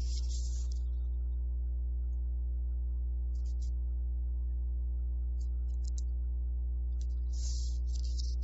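Steady electrical mains hum with a buzz of even overtones, unchanging throughout, with a few brief faint rustles over it.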